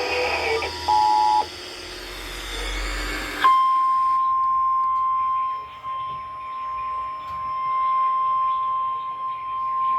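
Weather radio hiss with a short two-tone beep about a second in. At about three and a half seconds the hiss cuts off and the NOAA Weather Radio 1050 Hz warning alarm tone begins: one steady, unbroken tone signalling that a warning broadcast follows.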